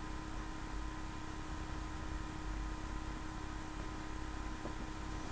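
Room tone: a steady low hiss with a faint electrical hum and thin steady whine, with no distinct sounds.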